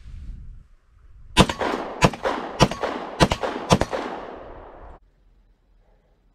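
Taurus PT1911 9mm pistol fired five times in quick succession, about 0.6 s apart, with each shot echoing off. The sound cuts off abruptly about a second after the last shot.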